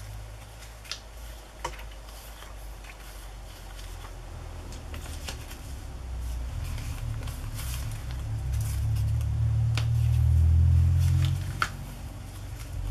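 Small cardstock tags and labels being shuffled and sorted by hand in a plastic container: light rustling with scattered soft clicks. A low hum swells from about four seconds in, is the loudest sound near the end, and drops off shortly before the end.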